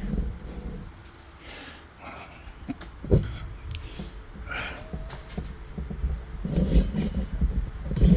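Handling noise from a camera being adjusted on its stand: scattered knocks, one sharper knock about three seconds in, then rubbing and rumbling near the end.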